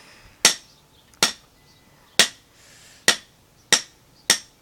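Toy caps popping: six sharp cracks, one every half-second to second.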